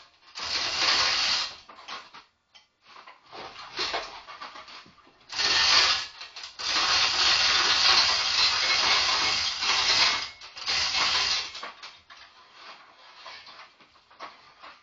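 Overhead chain hoist being worked to lift an engine on its chains: several noisy bursts with pauses between them, the longest lasting about three seconds near the middle.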